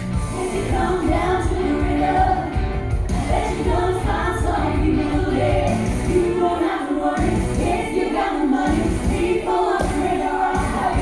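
Live band and several singers performing an up-tempo rock-and-roll number, with voices singing together over the band.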